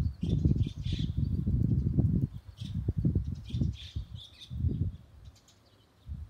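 Birds chirping in short, high bursts, several times, over an irregular low rumbling that comes in gusts, heavy at first and dying away near the end.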